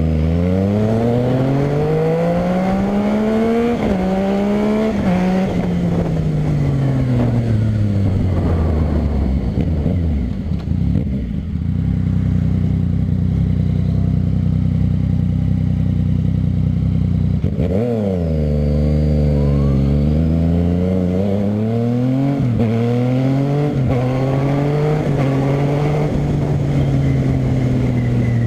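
Yamaha MT-09 three-cylinder engine through a short Dogster aftermarket exhaust with the dB killer removed, much louder than with the baffle fitted. It pulls hard through several gears, the pitch climbing and dropping at each shift, then winds down and holds a steady note for several seconds. It is revved sharply about two-thirds of the way in and accelerates up through the gears again.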